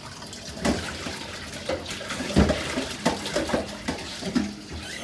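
Kitchen tap running into a stainless steel sink while hands wash under the stream, with a few sharp knocks, the loudest about two and a half seconds in.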